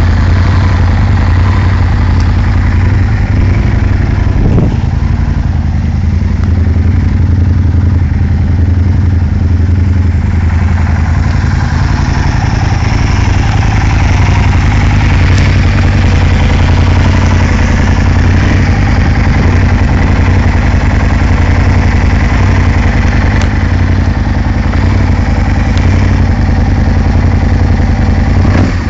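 Aprilia Tuono Factory's 1000 cc 60° V-twin engine idling steadily, with no revving.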